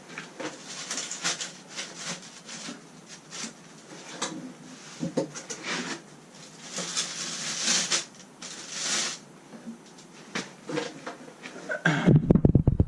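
Hands handling bike parts: scattered rubbing and light clicks, then a run of heavy low thumps near the end.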